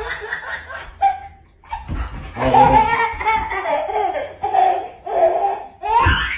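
A toddler laughing in repeated bursts, with a short pause about a second in.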